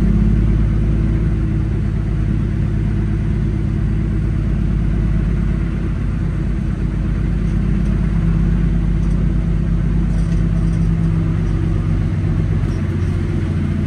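Semi-truck's diesel engine running at low speed: a steady low rumble with a slight rise and fall in pitch.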